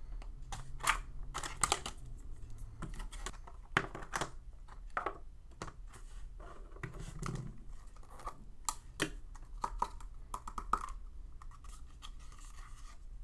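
Puzzle packaging being handled: a clear plastic box opened and plastic cube-puzzle spinners lifted out and set down, giving scattered sharp clicks, taps and scrapes of hard plastic with some light rustling.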